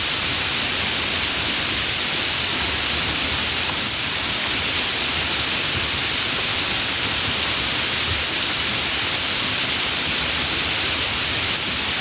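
Steady falling rain, an even hiss with no distinct drops standing out, strongest in the upper range, noisy but not too noisy.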